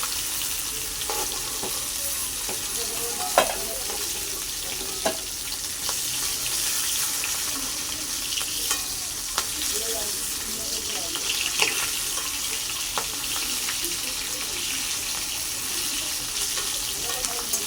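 Food sizzling as it fries in a pan, stirred with a spatula that knocks sharply against the pan a few times.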